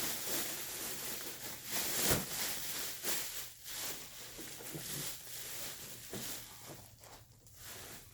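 Rustling and handling noises of packing being worked loose, with a sharp knock about two seconds in and a few smaller knocks, growing fainter toward the end.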